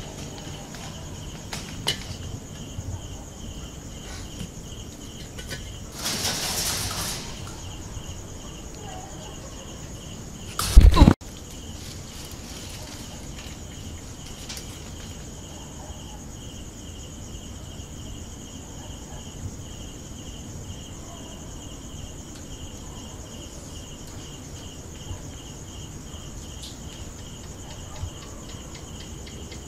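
Crickets chirping at night in a steady, evenly pulsing trill over a faint high steady whine. A short rustling hiss comes about six seconds in, and a single loud, sharp knock about eleven seconds in.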